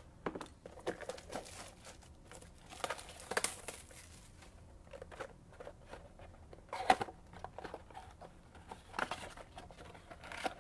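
An empty cardboard trading-card box handled and turned over in the hands: scattered rustling and crinkling with light taps, and one sharper knock about seven seconds in.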